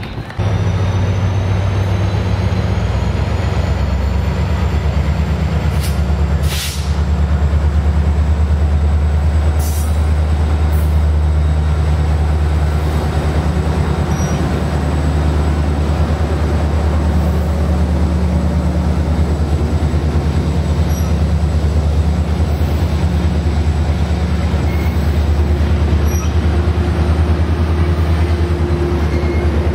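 A diesel-hauled Metrolink bilevel commuter train passing close by, a loud steady rumble with a low drone that sets in just after the start. A few sharp clicks come about six and ten seconds in.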